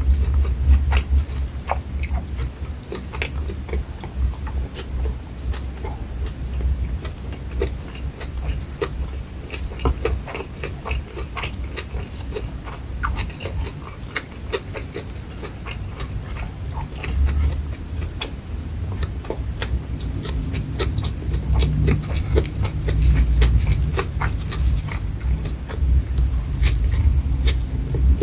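Close-miked chewing of rice and fried shrimp, full of sharp wet mouth clicks over a low rumble, growing louder near the end.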